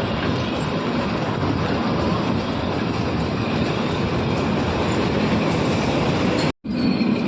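Kalka–Shimla narrow-gauge toy train running: the steady noise of the carriages and wheels on the track. The sound cuts out briefly near the end.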